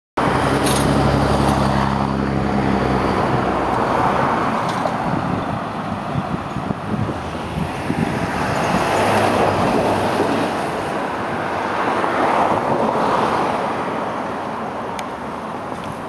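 Road traffic: cars passing on the street, the noise swelling and fading a few times, with a low vehicle engine drone in the first few seconds.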